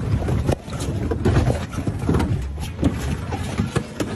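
A vehicle's engine running, with a steady low rumble and scattered knocks.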